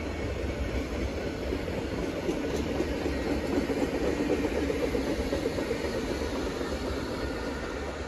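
A freight train of empty flat wagons rolling past steadily, their wheels on the rails making a continuous rumble that swells a little mid-way. Near the end, the train's Class 66 diesel locomotive draws close at the rear.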